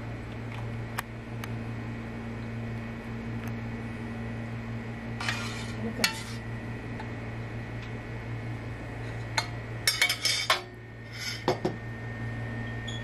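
A metal spoon clinking and scraping against a stainless-steel pot and wok as jaggery syrup is poured out, in scattered strokes with a busy cluster about ten seconds in, over a steady low hum.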